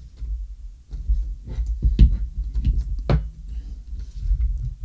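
Hard parts of a smart door lock being handled and fitted together: a few short clicks and knocks, the sharpest about two and three seconds in, over a low rumble of handling.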